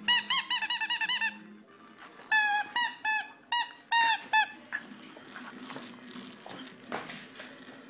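Spiky rubber squeaky dog ball squeezed in play with a puppy: a fast run of about eight squeaks, then four shorter runs of squeaks, each a short rise and fall in pitch. After that only faint scuffling and rustling.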